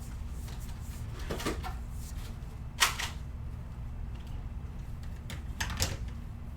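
Three light, separate clicks over a steady low hum, the sharpest one near the middle.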